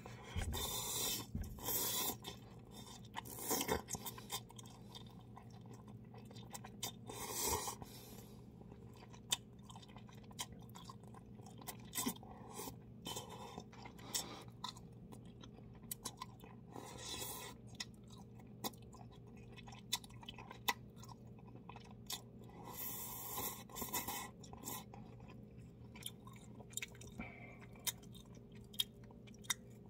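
Close-up mouth sounds of a man eating instant cup ramen: noodles slurped in hissing bursts every few seconds, with chewing and wet lip smacks and clicks between.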